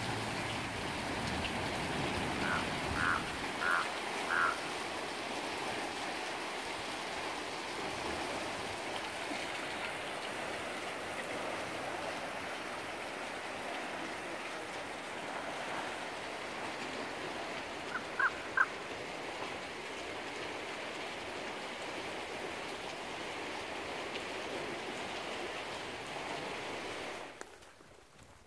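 Steady rushing water noise with short high chirps over it, four in quick succession a few seconds in and two more about eighteen seconds in. The rushing cuts off sharply about a second before the end.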